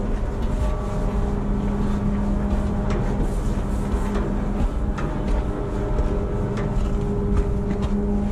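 Steady low drone of a ship's engines and machinery, with a held hum through it and a few light knocks, like footsteps on steel.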